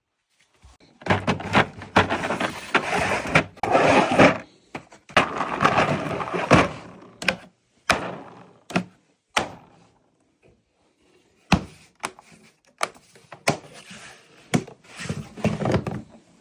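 Drawers of a metal-and-plastic tool case being slid and handled, tools clattering inside, with a series of sharp knocks and clunks between stretches of sliding noise.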